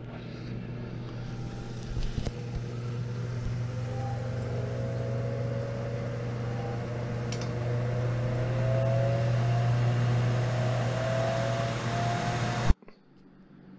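Ninja Foodi XL Grill & Griddle running in grill mode: a steady fan whir with a strong low hum and a faint whine that slowly rises in pitch. The sound drops away sharply near the end.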